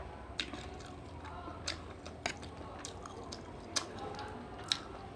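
Eating sounds: chewing, with about six sharp clicks of a utensil against a dish spread through.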